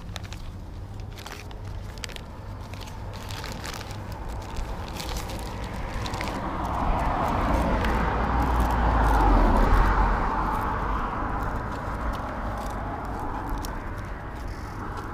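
A rushing noise with a low rumble swells to a peak about two-thirds of the way through and fades again, as of a vehicle going past. Over it come small clicks and crinkles of a plastic tobacco bag and cigarette papers being handled while a cigarette is hand-rolled.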